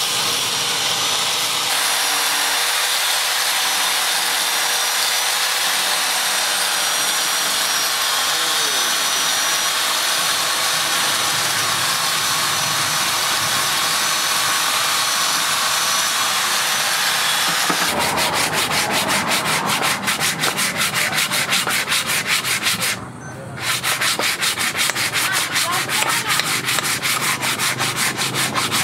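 A steady hiss for the first half. Then sandpaper is rubbed by hand along a wooden hammer handle in quick, rhythmic back-and-forth strokes, pausing briefly once.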